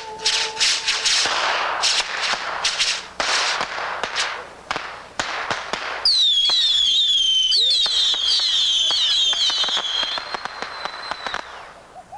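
Fireworks going off: a rapid run of sharp bangs and crackling for about six seconds, then several high whistles, each falling in pitch and overlapping, mixed with more pops, which stop shortly before the end.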